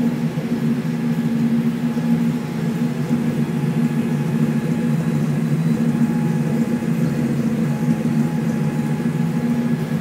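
Honda H22 2.2-litre DOHC VTEC four-cylinder in an EJ1 Civic idling steadily through a Skunk2 Mega Power cat-back exhaust with no catalytic converter, a low, even exhaust drone with no revs.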